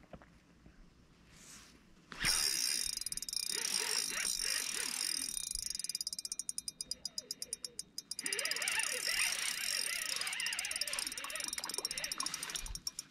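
A chorus of frogs calling at the lakeshore. It starts suddenly about two seconds in, with many overlapping croaking calls and a rapid pulsing trill in the middle.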